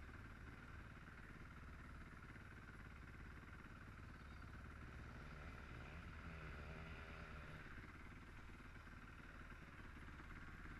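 Near silence: a faint steady background hum, with a distant motorcycle engine faintly rising and falling about halfway through.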